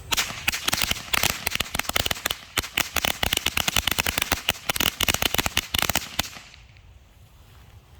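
A 100-count strip of small Black Cat-type firecrackers going off: a rapid, irregular string of sharp bangs lasting about six seconds, which stops suddenly.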